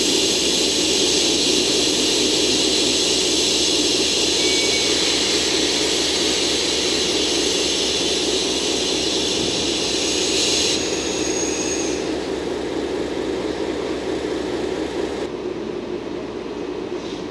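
DE10 diesel-hydraulic locomotive's V12 engine idling while standing, a steady running noise with a bright hiss over it. About eleven seconds in the hiss drops away, and near the end a lower, quieter steady hum takes over.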